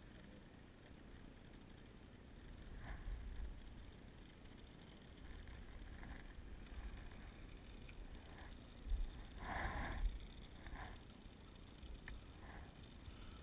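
Wind rumbling on the microphone, with a few short rustles, louder about three seconds in and again around two-thirds of the way through.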